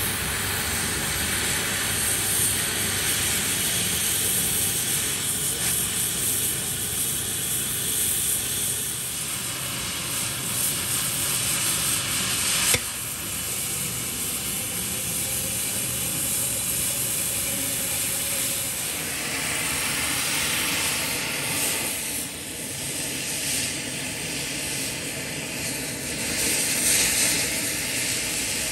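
Oxy-fuel gas cutting torch hissing steadily as its flame and oxygen jet cut through a steel pipe. A single sharp click about halfway through.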